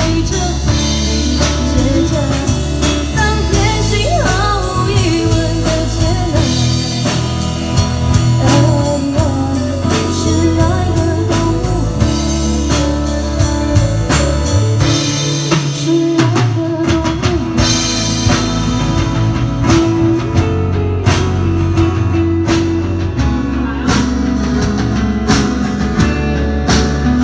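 Live rock band playing, with drum kit and electric guitar under a singing voice.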